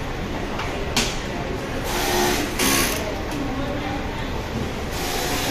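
Factory assembly-line noise: a steady machine hum with several short hissing bursts, a sharp click about a second in, and workers' voices in the background.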